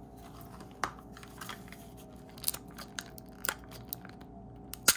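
Plastic packaging being handled: scattered light clicks and crinkles as a miniature toy grocery item is worked out of its plastic capsule and wrapping.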